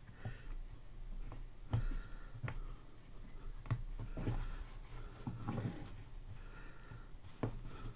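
Steel ruler clicking and scraping against a plastic centre ring and a felt mat as the felt is pushed under the ring: faint, scattered ticks and short rubs.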